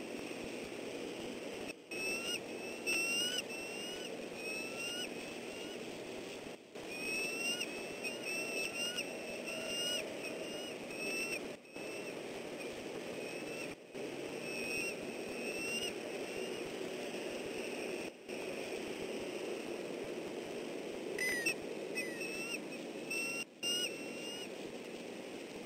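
Bald eagle pair calling: runs of quick, high, rising chirps, several a second, in four bouts, over a steady low rumble.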